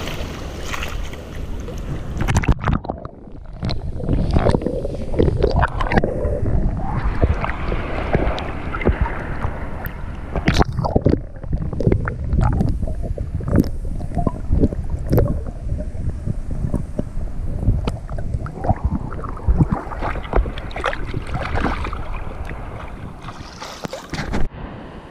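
Shallow surf water sloshing and splashing around an action camera held at and just under the surface, in an irregular run of splashes with wind on the microphone. A sharper splash near the end as the snook is let go and kicks away.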